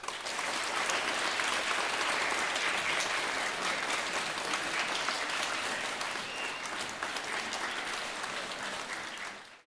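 An audience, mostly schoolchildren, applauding. The clapping starts suddenly, holds steady, eases a little near the end and then cuts off abruptly.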